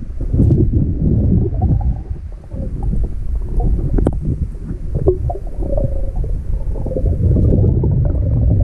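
Muffled underwater rumbling of water moving against a submerged camera as it is carried along, with a few small clicks and knocks.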